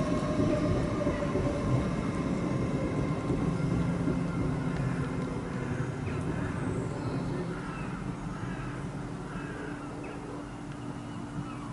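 A train crossing a stone railway viaduct: a steady low rumble with a hum, loudest at first and slowly fading away.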